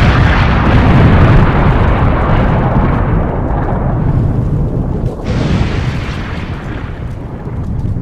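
Explosion sound effect: a loud rumbling blast that slowly dies away, swelling again briefly about five seconds in.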